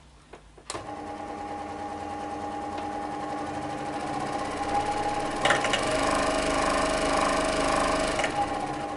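Record Power SS16V variable-speed scroll saw switched on about a second in and running with no wood on the table, its blade reciprocating. The speed is turned up so it grows steadily louder, then eased back near the end.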